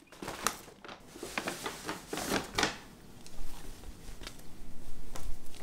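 Irregular rustles and light clicks of objects being handled at close range.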